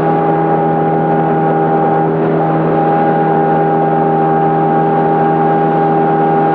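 Motorboat engine running steadily at cruising speed: a loud, even drone with a constant high tone over it, which drops out for a moment about two seconds in.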